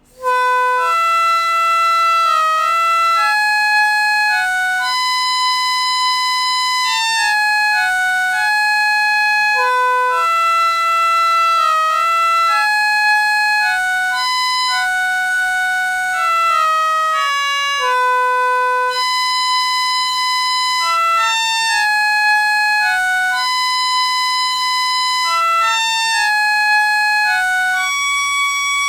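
Cleaned reed-organ reeds sounded one at a time, without the organ, to play a simple melody: a single line of steady, reedy notes following one another.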